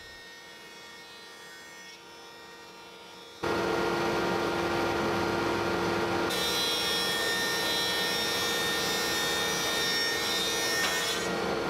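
A stationary thickness planer starts running abruptly about three seconds in and then runs steadily, taking light passes over glued-up wood panels to even their surfaces. A higher whine joins about six seconds in and drops away near the end. Before the planer starts there is only a faint hum.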